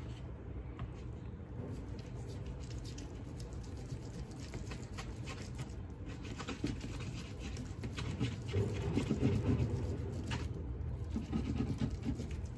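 Food sizzling in a hot cooking pot, a dense run of fine crackles over a low hum that grows louder in the second half.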